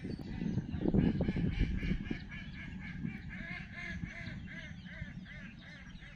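A bird calling over and over in short, evenly spaced calls, about three a second, slowly fading. A low rumbling noise lies beneath, loudest in the first two seconds.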